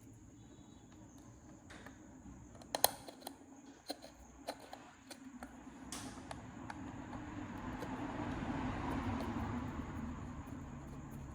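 A handful of sharp clicks and taps, the loudest about three seconds in, over a steady low hum and a faint high whine; a rougher mechanical rumble swells from about six seconds in and peaks near nine seconds.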